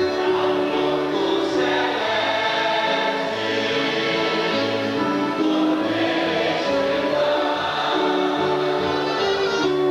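A church congregation singing a hymn together, accompanied by keyboard, acoustic guitar and saxophone.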